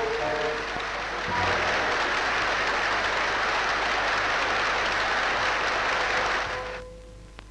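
A crowd applauding, swelling about a second in and holding steady before dying away near the end.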